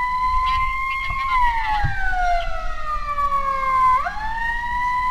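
Emergency vehicle siren wailing: one tone holds high, slides slowly down over about three seconds, then climbs quickly again about four seconds in. A low background rumble runs underneath.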